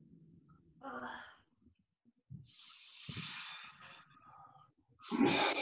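A man's strained breathing through a painful mobility-ball stretch: a short voiced groan about a second in, a long sighing exhale in the middle, and a louder grunt near the end.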